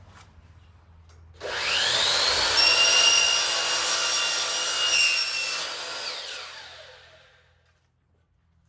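Electric power saw spinning up with a rising whine about a second and a half in and cutting, trimming another eighth of an inch off a screen track, then winding down and stopping near the end.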